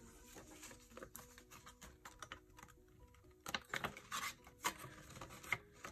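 Paper banknotes rustling and crinkling as a small stack of bills is handled and counted by hand, with the loudest crinkles about three and a half to five seconds in. Soft background music with a short repeating melody plays underneath.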